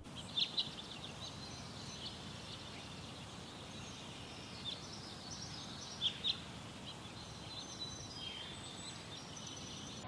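Outdoor nature ambience: a steady low hiss with scattered high, short bird chirps and twitters, two louder clusters near the start and about six seconds in.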